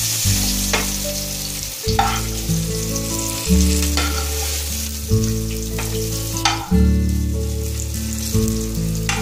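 Oil sizzling in a frying pan as fried pointed gourd and potato pieces are lifted out, with a metal spatula knocking and scraping against the pan about every second or two. Background music of low held notes plays underneath.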